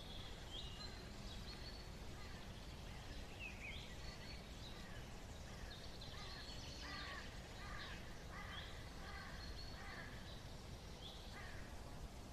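Faint outdoor ambience: small birds calling with short chirps and quick pitch glides, scattered over a steady low background rumble.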